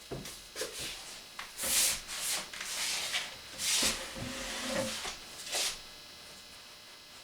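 Kitchen handling noises: a string of short scrapes and rustles with a few light knocks, and a brief squeak about four seconds in, as things are moved about on the counter and stove.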